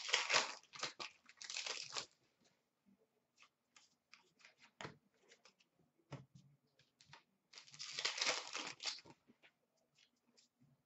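Hockey card pack wrappers being torn open and crinkled, in two bursts: one at the start and another about eight seconds in. Between them come light clicks and flicks of cards being handled.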